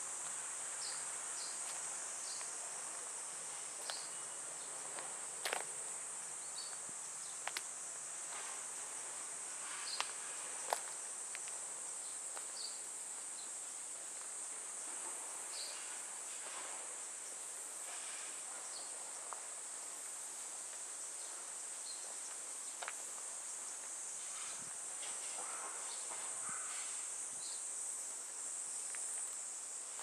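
A steady, high-pitched drone of summer insects, with a few sharp clicks scattered through it, the loudest about a third of the way in.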